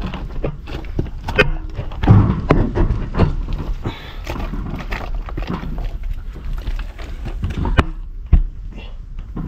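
Irregular knocks, thuds and rattles from a loaded cargo bed, holding tile boxes and cement bags, jolting over rough ground, over a constant low rumble.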